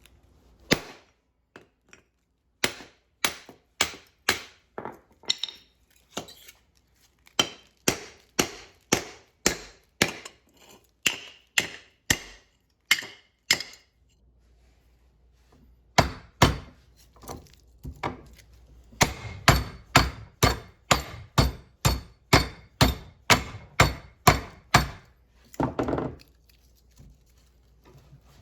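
Hammer blows on the welded steel core of a microwave transformer, being beaten open to free its copper windings. Sharp metal strikes come about two a second in two long runs, with a pause of about two seconds in the middle.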